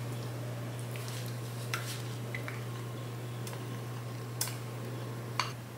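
A few light clicks and taps of a utensil against a glass bowl and a steel mixing bowl as softened butter is scraped from one into the other, over a steady low hum.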